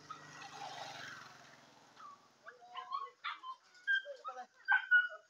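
A run of short, high, yelping animal calls in quick succession, starting about two and a half seconds in and loudest near the end. Before them there is a soft rushing hiss that fades away.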